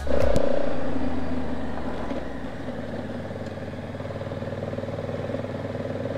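Honda Africa Twin motorcycle engine running on the move, loudest at first, then settling to a steady lower note after a few seconds.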